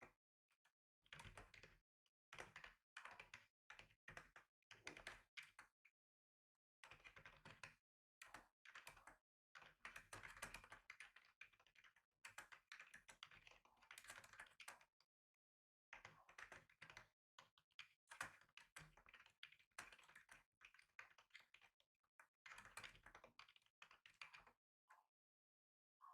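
Computer keyboard typing: quiet runs of rapid key clicks in bursts, broken by short pauses about a quarter, a half and nearly the whole way through.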